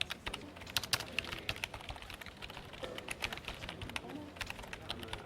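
Computer keyboard typing: quick, irregular key clicks, several a second.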